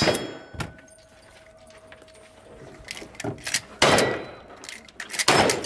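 The last shot of a rapid lever-action rifle string dies away. A few light metallic clicks of gun handling follow, then a pump-action shotgun fires twice, about a second and a half apart, each blast ringing on.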